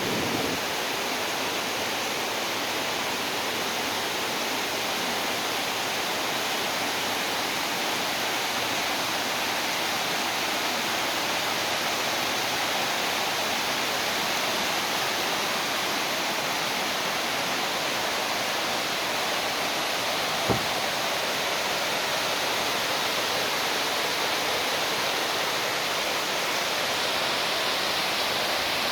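Rain falling steadily, an even hiss with no let-up. A single sharp click about twenty seconds in.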